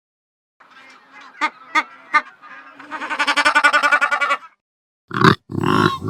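Sheep bleating: one long, wavering bleat with a fast tremble. Before it come a few soft sounds and three sharp clicks. Near the end, two short loud animal grunts begin.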